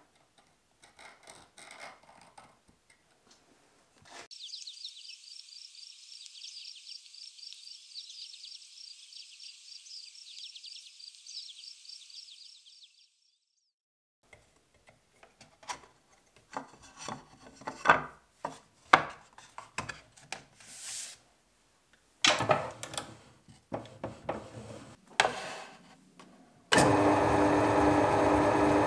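A run of scraping, rubbing and knocking strokes of hand work on wood. Near the end a Scheppach DP18 Vario drill press starts up, and its motor runs with a steady hum.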